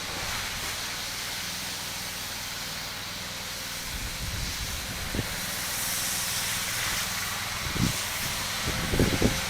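Pressure-washing rig running steadily, its engine a low hum under a constant hiss of water spray. From about four seconds in, wind buffets the microphone in low gusts.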